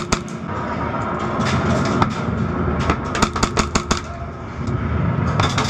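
Airsoft guns firing: sharp single snaps at the start and about two seconds in, then a rapid burst of about eight shots in under a second near the middle, over a steady low rumble of background noise.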